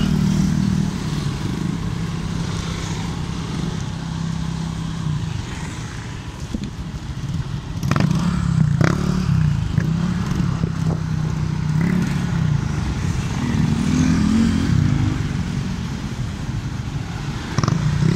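Small motorcycle engine running in slow stop-and-go traffic, its note rising and falling as the throttle is opened and eased off. A couple of sharp clicks about eight seconds in.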